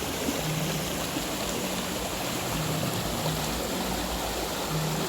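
Steady rush of falling and running water from a waterfall.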